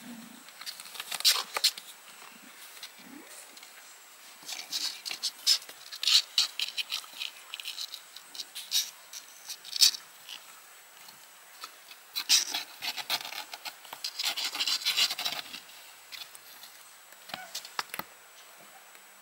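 Kittens scuffling and play-fighting in a cardboard box, their claws scratching and scraping on the cardboard and blanket in irregular bursts, with one sharp click near the end.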